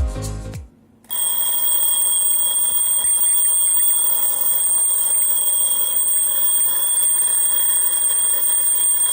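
Twin-bell alarm clock ringing: its hammer beats rapidly between the two bells in one steady, loud ring. The ring starts about a second in and stops abruptly at the end.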